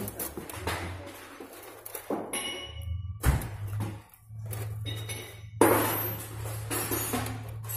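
Metal pump parts clinking and knocking irregularly as they are handled, with one sharp knock about three seconds in and a heavier clatter a couple of seconds later, over a steady low hum.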